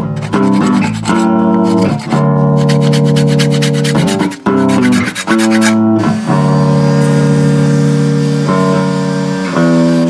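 A cigar box bass guitar plays a plucked tune of single held notes. About six seconds in, an electric orbital sander starts running on wood under the music, adding a steady hiss and a thin high whine.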